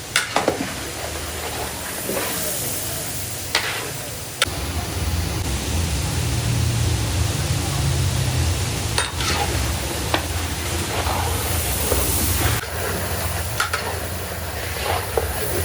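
Food sizzling and frying in a large cooking pot, stirred with a metal ladle that scrapes and clinks against the pot several times. About four seconds in, a low steady rumble joins the hiss.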